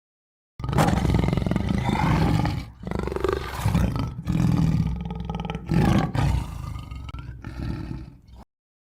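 A large wild animal roaring: a string of deep roars with brief breaks between them. The sound cuts in sharply about half a second in and cuts off just as sharply shortly before the end.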